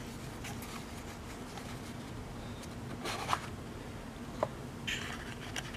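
Small old cardboard Creek Chub lure box being handled and opened: a few short papery scrapes and a light tap, over a faint steady hum.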